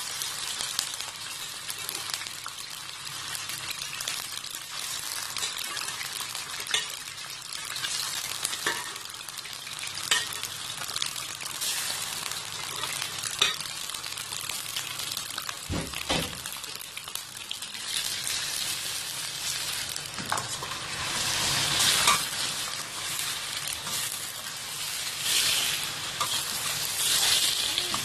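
Raw chicken pieces sizzling in hot oil in a stainless steel kadai: a steady hiss with scattered clicks and knocks as pieces are added and turned, the sizzle surging louder a few times in the second half.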